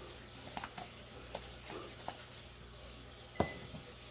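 Light taps and clicks of spice containers and utensils as spices are measured into a bowl, with one sharp ringing clink about three and a half seconds in.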